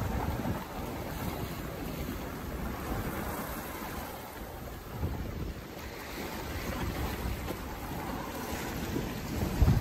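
Water rushing and splashing along the hull of a Careel trailer sailer under sail through choppy water, with steady wind buffeting the microphone.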